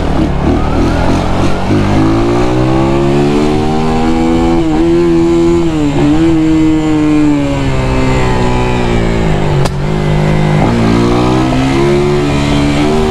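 Brand-new Missile 250cc timing-chain motorcycle engine pulling in second gear under the rider. Its note climbs about two seconds in, then rises and falls with the throttle, with brief dips around five and six seconds in and again near ten seconds, and it climbs again near the end.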